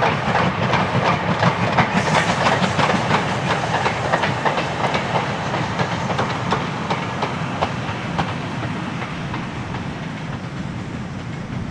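Steam-hauled goods train rolling past, its wagon wheels clattering over the rail joints in a rapid run of clicks, slowly fading as it moves away.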